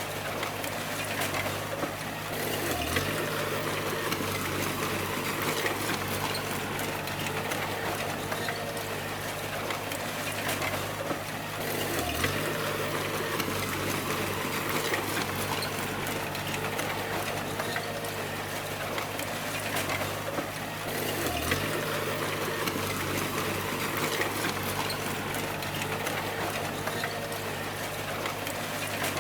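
Bulldozer diesel engine running steadily under load, with clattering tracks and machine noise over it. About every nine seconds the engine note dips briefly, in a repeating push cycle.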